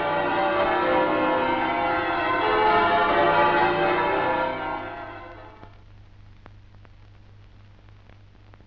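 Church bells pealing, their many overlapping ringing tones dying away about five seconds in. A steady low hum and faint scattered clicks of the old film soundtrack remain.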